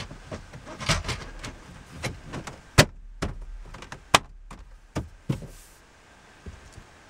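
2009 Mazda CX-7's plastic radio bezel being fitted back into the dashboard: a run of knocks and rustles, with two sharp loud clicks a little under three and a little over four seconds in as its clips snap into place.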